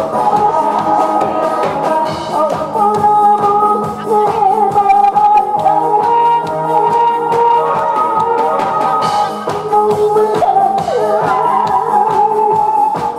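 A woman singing a Korean song into a microphone over a recorded backing track with a steady drum beat.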